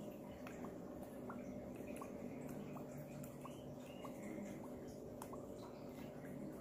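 Liquid dripping from a dropper into a beaker of liquid, about one small plink every three-quarters of a second, over a faint steady hum.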